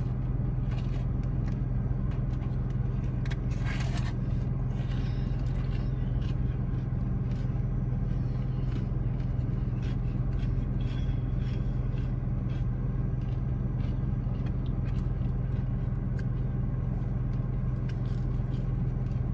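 Steady low hum of a car running inside its cabin, with faint scattered clicks and rustles of food being handled and eaten.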